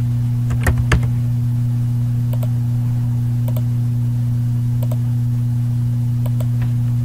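A few computer keyboard key clicks about a second in as a short word is typed, with fainter ticks later, over a steady low electrical hum.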